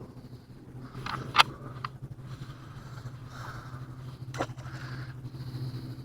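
Handling noises of a landed blue catfish being held and unhooked: scuffs and a couple of sharp knocks, about a second and a half in and again past four seconds, over a steady low hum.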